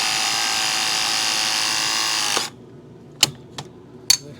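Ridgid RP 340 press tool running a press cycle on a 2-inch Viega press fitting: a steady motor whine that cuts off suddenly about two and a half seconds in, followed by a few sharp clicks.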